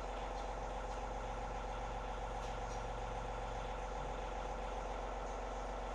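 John Deere compact tractor engine idling steadily.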